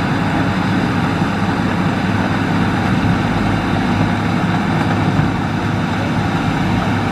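Hitachi hydraulic excavator's diesel engine running steadily under load.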